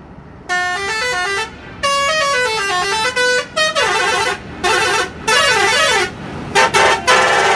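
A multi-tone musical vehicle horn playing a quick tune of stepped notes that climb and fall, in about six loud bursts with short gaps.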